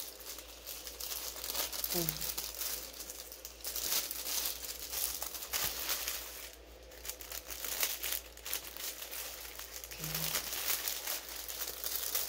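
Clear plastic bag crinkling and rustling in irregular crackles as it is handled and folded around an object.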